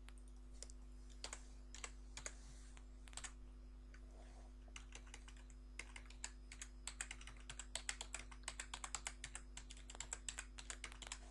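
Typing on a computer keyboard: scattered keystrokes at first, then a fast run of keys from about halfway through, over a steady low hum.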